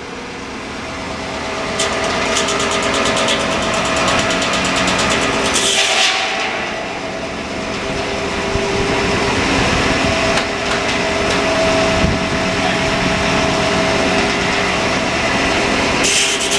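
Frick circular sawmill's blade cutting through a log under power, the sound building over the first couple of seconds and then holding steady through the cut, with the driving engine working under load.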